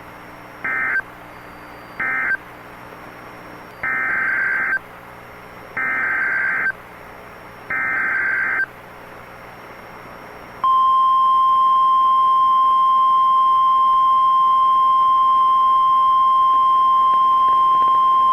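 Emergency Alert System SAME data signal: two short screechy data bursts close the previous alert (the end-of-message code), then three longer header bursts follow about two seconds apart. About ten and a half seconds in, the NOAA Weather Radio warning alarm tone starts and holds as one steady high beep, announcing a new warning.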